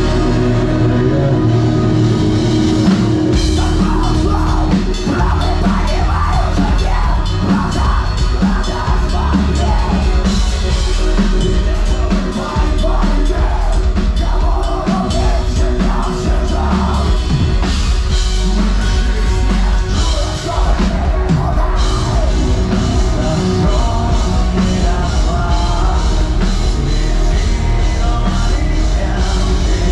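Live rock band playing: distorted electric guitars and drum kit, with a male vocalist singing into the microphone. The full band comes in about three seconds in after a sparser opening.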